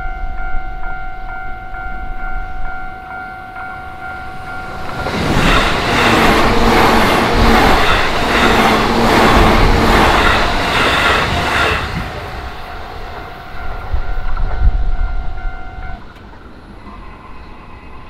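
Japanese level-crossing warning bell ringing steadily while a JR Yokohama Line E233-series electric commuter train passes for about seven seconds, its wheels clattering in a quick regular rhythm over the rail joints. The bell stops a couple of seconds before the end as the crossing clears.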